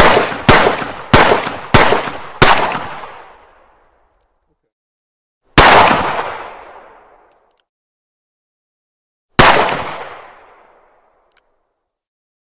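Pistol gunshots: a quick string of five shots about half a second apart, then two single shots a few seconds apart, each ringing out in a long fading echo.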